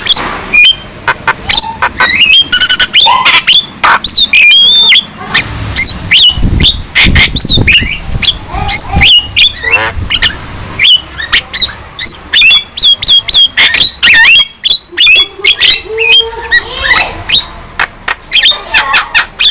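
Young Javan myna chattering continuously: a dense stream of harsh squawks, quick clicks and short sharp whistles.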